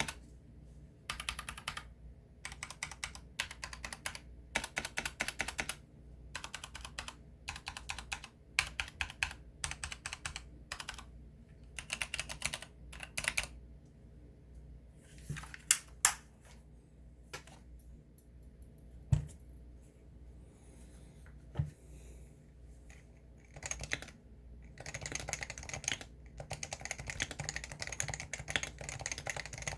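Typing on a compact Leopold FC660-series keyboard: runs of fast keystrokes in short bursts with brief gaps between them. Midway the typing thins out to a few single, louder key hits, then picks up again into steady, fast typing for the last several seconds.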